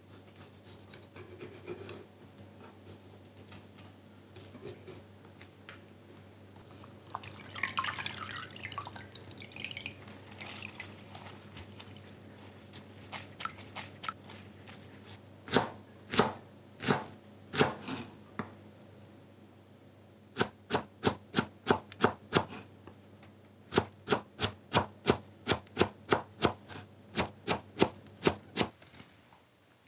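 Kitchen knife on a wooden cutting board, with hand-wrung wet greens. First the blade cuts quietly as stems are trimmed from blanched kale leaves. Then comes a wet squelch and dripping as blanched chwinamul is squeezed out by hand. Last, sharp knife chops on the board as the chwinamul is chopped: a few single strokes, then quick runs of about three chops a second.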